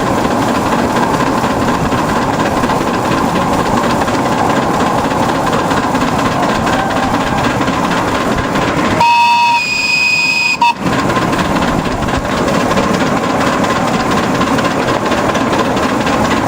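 Miniature steam locomotive running along the track, a steady rumble and hiss. About nine seconds in, its whistle sounds for under two seconds on several pitches at once and cuts off sharply.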